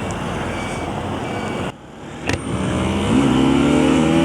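Rushing wind and road noise while riding, then after a sudden break about halfway, a Bajaj Pulsar NS200's single-cylinder engine revs up and holds a high, steady pitch as the motorcycle accelerates hard.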